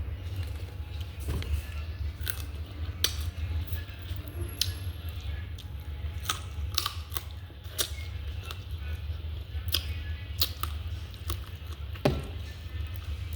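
Close-up eating sounds: chewing with sharp mouth clicks and smacks every second or so, the loudest click near the end, over a steady low hum.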